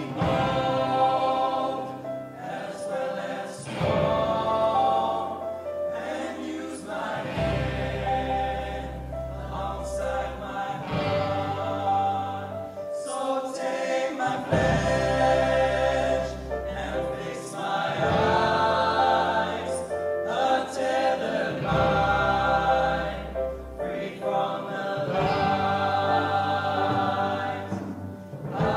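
Live band performance: a group of young male voices singing together in choir-like harmony, over held bass-guitar notes that drop in and out, with acoustic guitars.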